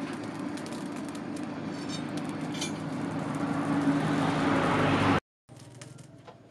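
Charcoal forge fire burning hard under forced air, a steady rush with a low hum and scattered crackles of sparking coals, growing louder until it cuts off suddenly about five seconds in.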